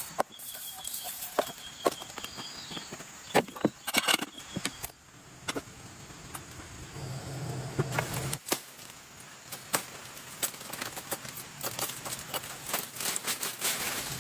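Scattered sharp knocks and clicks, irregular and uneven in strength, with a quick run of high chirps in the first few seconds.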